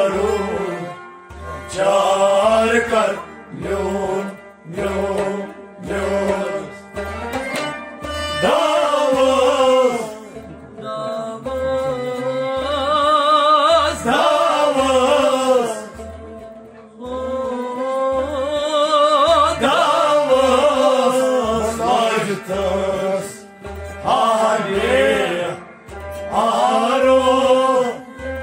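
A man sings a Kashmiri devotional kalam in long, ornamented phrases with a wavering pitch, over instrumental accompaniment and a steady low drum beat.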